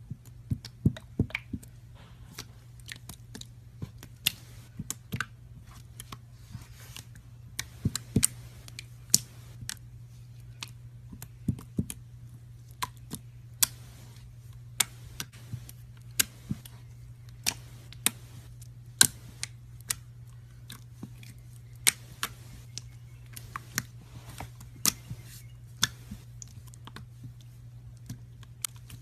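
Slime being pressed and poked by hand, giving irregular sharp clicks and pops, one to a few a second, over a steady low hum.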